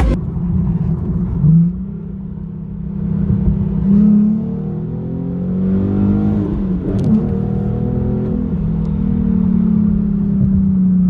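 Nissan Z sports car's engine running while driving, its revs rising and dropping several times.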